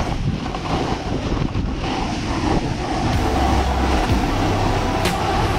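Wind buffeting the microphone, a dense steady rush with a heavy low rumble.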